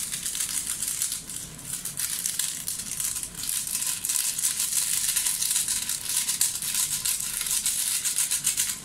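A plastic sachet of Magic Sarap granulated seasoning is shaken and crinkled, and the granules patter onto chicken pieces in a pot. The result is a dense, fast rattle that goes on throughout.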